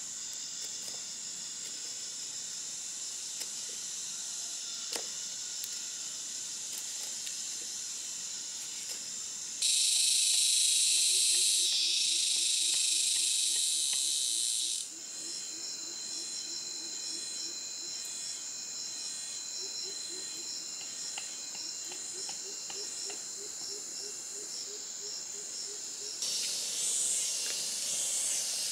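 Chorus of forest insects: a steady high-pitched drone with a faster pulsing beneath it. About ten seconds in, a much louder, harsher buzz takes over for about five seconds, then the drone returns with a low pulsing trill under it.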